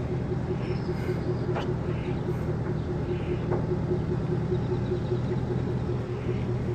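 Tow vehicle's engine running steadily at low speed as it pulls a boat trailer slowly across pavement, a continuous low hum with a brief knock about one and a half seconds in.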